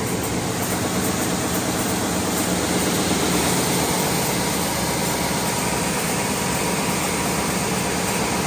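R-RP1300 wide belt sanding machine running in a steady, continuous mechanical drone with a low hum.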